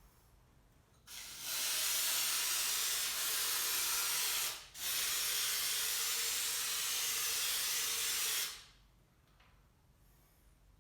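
Aerosol can of white lithium grease spraying: two long hissing bursts of about three and a half seconds each, with a brief break between them.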